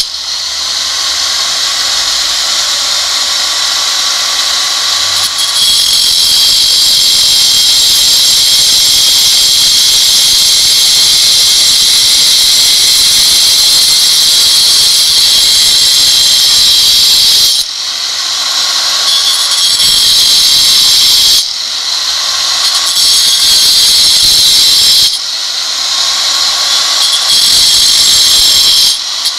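Angle grinder cutting granite: a loud, high-pitched scream of the blade grinding through the stone, steady for long stretches and dipping briefly three times in the second half.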